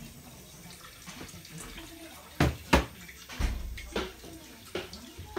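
Kitchen tap running into a stainless-steel sink while a plate is washed by hand, with a few sharp knocks and clatters of dishware against the sink, the two loudest close together about halfway through.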